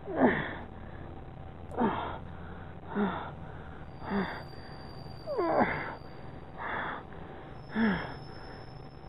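A man's pained gasps and groans, seven short ones about a second apart, several sliding down in pitch, as he rips an implanted tracking chip out of his hand.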